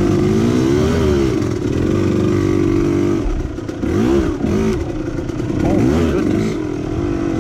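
Two-stroke KTM dirt bike engine riding off-road, revving up and down in repeated throttle blips, its pitch rising and falling several times.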